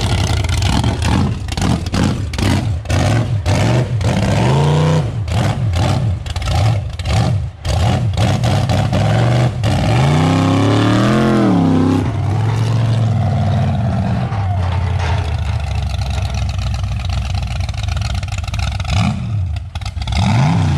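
Mud truck's 383 stroker small-block Chevy V8 revving hard under load while towing a heavy gooseneck trailer. The note is choppy for the first half, with the pitch surging up and down twice, then holds steadier and rises again near the end.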